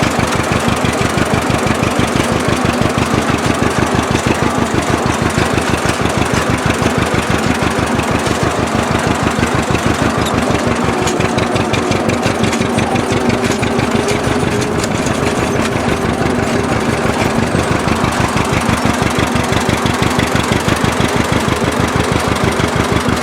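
1957 John Deere propane tractor's two-cylinder engine running steadily in a fast, even beat while pulling a hay rake.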